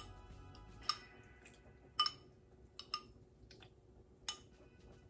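Metal spoon clinking against a ceramic bowl while tamarind juice is scooped out: a handful of sharp, light clinks spaced roughly a second apart.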